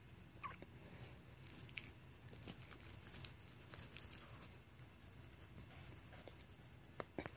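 Faint rustling with scattered small clicks as a hand rubs a small dog's belly and chest.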